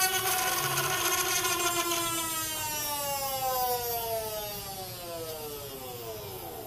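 Small brass gyroscope rotor spinning at very high speed, giving a drill-like whine of several pitches at once. From about two seconds in, the whine falls steadily in pitch and fades as the rotor is braked by a roll of tape pressed against it and spins down.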